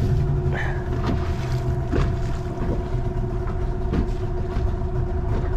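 Motorboat engine running steadily with a constant hum. A few short slaps come as the hull meets the waves.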